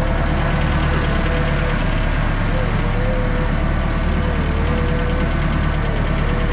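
An engine running steadily, with a low hum and a thin wavering tone above it.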